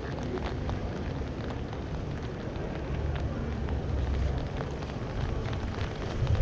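City street ambience: a low, uneven rumble that grows louder towards the end, with scattered faint ticks and a faint murmur of voices.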